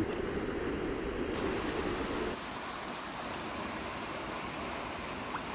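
Steady rushing of a shallow river's flowing current, changing in tone about two seconds in. A few faint, short high chirps sound over it.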